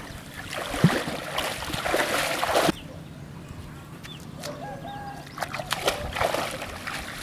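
Pond water splashing and sloshing as a person wades through a shallow lily pond, cutting off suddenly about three seconds in; then softer rustling of grass and waterlily stems.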